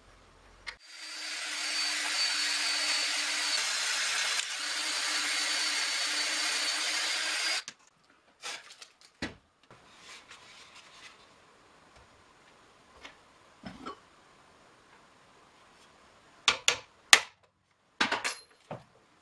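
A power tool runs steadily for about seven seconds, with a short break about halfway, then stops. Scattered sharp knocks and clicks follow, the loudest near the end.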